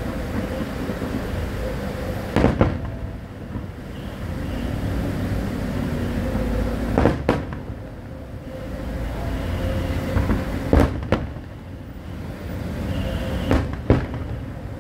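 Aerial fireworks shells bursting, four times a pair of sharp bangs a fraction of a second apart, spaced about four seconds from one another, over a low steady rumble.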